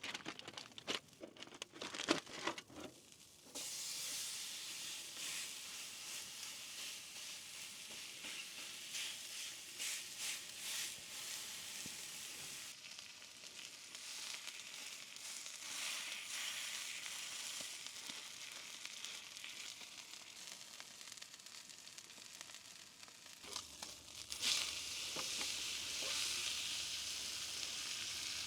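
A few knocks and clatters of the pan and utensils being handled, then steak sizzling steadily as it sears in a frying pan, growing louder near the end.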